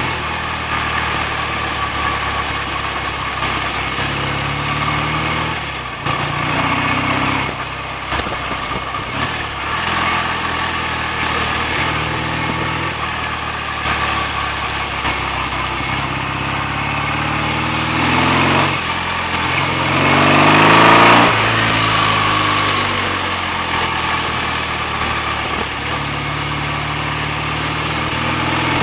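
BSA A65 650 cc parallel-twin motorcycle engine running under way, its revs climbing and dropping back again and again as it goes through the gears. A short rush of noise comes about twenty seconds in, at the top of a steep climb in revs.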